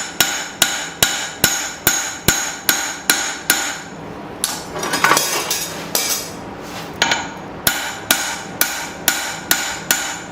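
Blacksmith's hand hammer striking a hot steel knife blade on the anvil, a steady run of ringing blows about two a second as the edge bevel is forged thin. The blows pause for about two seconds in the middle, then start again.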